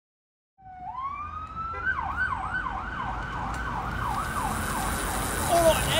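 Emergency vehicle siren starting about half a second in with a rising wail, then switching to a fast yelp of about three sweeps a second over a low rumble, falling away near the end.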